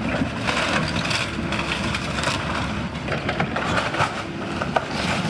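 Excavator engine running under load while its bucket tears through a shingled wooden roof, with wood and roofing cracking and crunching. A sharper crack comes a little before the end.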